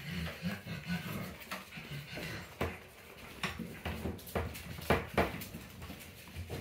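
Five-week-old puggle puppies making small repeated grunting and whimpering noises, then several sharp knocks and scuffles.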